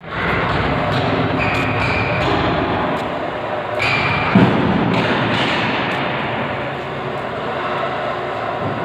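Large 100 HP impact pulverizer (sawdust grinder) with its cyclone blower running, a loud, steady mechanical noise with scattered knocks. A single thud about four and a half seconds in is the loudest moment.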